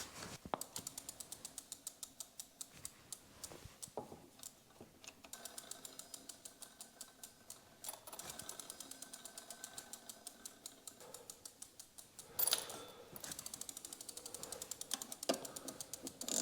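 Fairly quiet runs of rapid ratcheting clicks, several a second, that stop and start again with short pauses.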